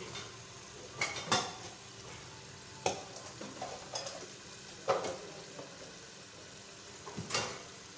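Metal slotted spatula stirring chicken curry in a metal cooking pot, scraping and knocking against the pot several times, over a faint steady sizzle of the cooking masala.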